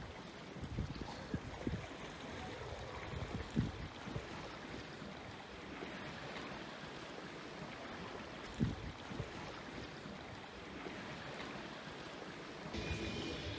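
Water lapping and splashing against the hull of a small boat under way, with wind noise on the microphone and a few low bumps.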